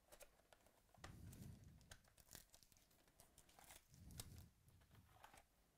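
Faint crinkling and tearing of plastic shrink-wrap being pulled off a cardboard trading-card box, with scattered crackles and two soft thumps of the box being handled, about a second in and about four seconds in.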